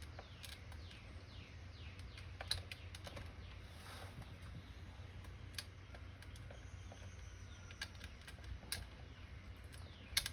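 Scattered small clicks and taps of nuts, washers and a wrench being handled while self-locking nuts are fitted onto a jump-starter battery's posts, a few seconds apart with a cluster near the end, over a low steady hum.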